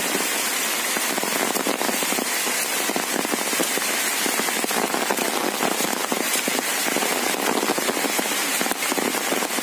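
Heavy rain falling steadily, a dense crackle of countless drops with no let-up.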